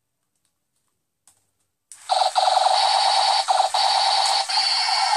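Battery-powered toy robot's sound chip blaring a loud electronic tone through its small speaker, starting about two seconds in and cutting out briefly a few times. A faint click comes just before it starts.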